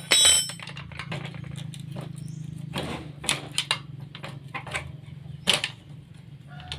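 Hand tools working on metal motorcycle brake-caliper parts, making irregular clicks, taps and clinks. A sharp metal clink rings briefly right at the start. A steady low hum runs underneath.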